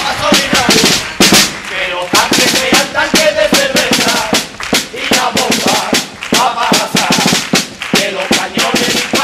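Marching snare drum beating a quick, steady rhythm, with a tune carried over it.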